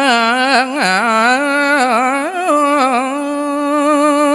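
A man singing a Balinese geguritan verse solo into a microphone: an ornamented, wavering melody that settles into a long held note in the second half.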